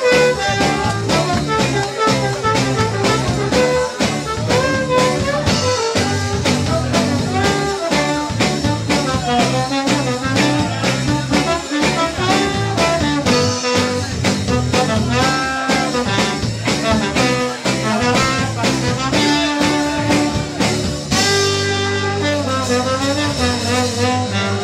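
Live band playing with a trombone lead over electric guitars and a steady beat. About 21 seconds in the band moves to long held notes.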